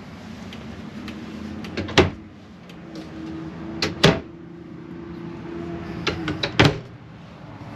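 Wooden RV cabinet doors being opened and shut: three sharp knocks about two seconds apart, the last one preceded by a few lighter clicks.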